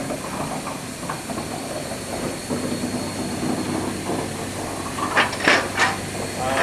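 A 15-inch gauge railway train moving, with a steady steam hiss, and a few sharp knocks about five seconds in.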